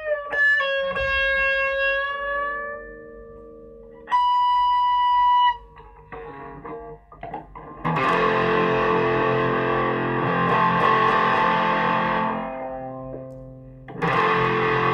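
Solo electric guitar through distortion, played on a Stratocaster-style guitar: long sustained notes with bends, then a single high held note, a few quiet picked notes, and about eight seconds in loud distorted chords that ring out and fade before returning near the end.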